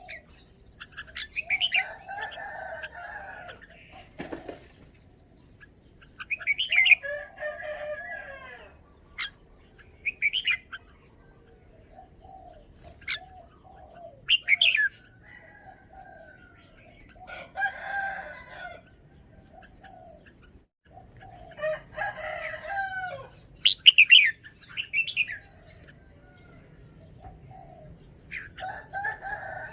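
Red-whiskered bulbul singing: short, varied phrases of whistled notes every few seconds, each with quick falling high notes over lower warbling ones.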